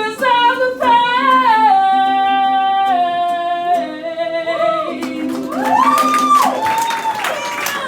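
A woman sings a drawn-out final phrase of a comic song to ukulele, her voice stepping down and holding one long note. Other rising-and-falling vocal sounds follow after about five seconds.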